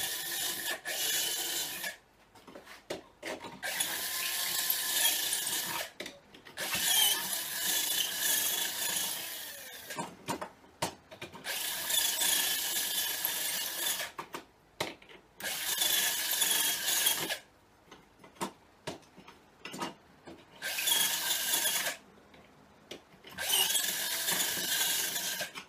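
Cordless drill running in about seven short runs of two seconds or so, with a steady whine, enlarging a pre-drilled rivet hole that is too small for the rivet. Small clicks and knocks are heard between the runs.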